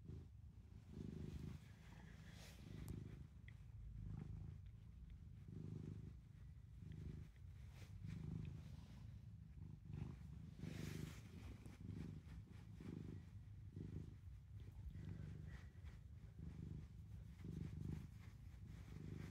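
Gray-and-white cat purring while being stroked, a low purr that swells and fades with each breath, roughly once a second; the cat is purring with pleasure at being petted.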